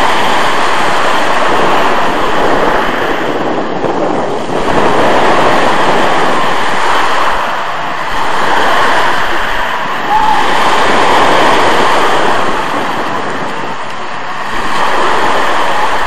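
Small sea waves breaking and washing up a pebble beach, the surf swelling and easing every few seconds, with wind buffeting the microphone.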